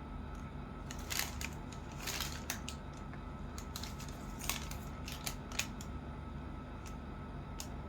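Light handling noise: scattered short clicks and rustles, with a few sharper ones about a second in, around two seconds in, and near the end, over a steady low hum.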